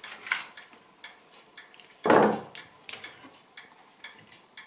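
Kitchen knife knocking on a cutting board while chicken is cut up: a few scattered knocks and clicks, with one louder clatter about two seconds in.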